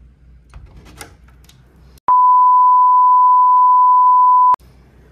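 A single steady, pure electronic beep tone, about two and a half seconds long, starting and stopping abruptly.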